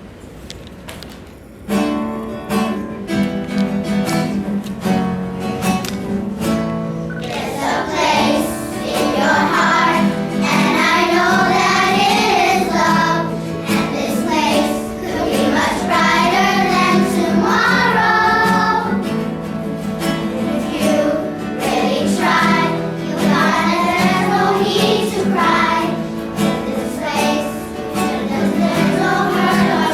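A group of children singing a song together to an instrumental accompaniment. The accompaniment starts about two seconds in, and the voices join at about eight seconds.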